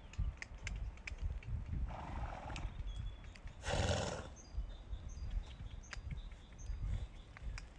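Horses: two short, breathy blows about two and four seconds in, with scattered sharp clicks and knocks.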